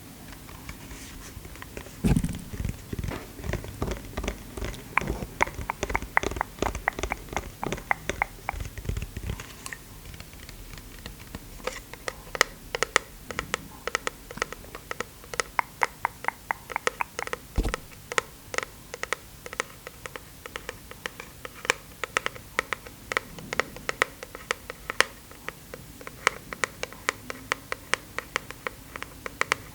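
Close-miked, rapid and irregular clicking and tapping, with heavier low thumps mixed in during the first several seconds.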